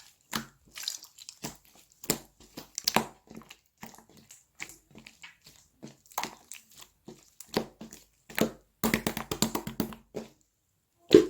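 Slime being squished, pressed and poked by hand, giving irregular wet clicks and pops, with a dense run of crackling about nine seconds in and one louder pop near the end.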